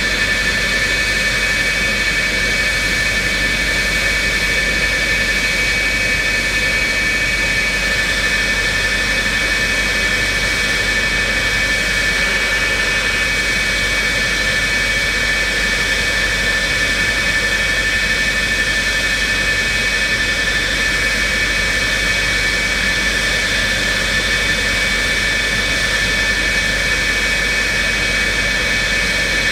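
F-4E Phantom II's twin General Electric J79 turbojet engines running steadily at idle: a constant high whine over an even rush of jet noise, unchanging throughout.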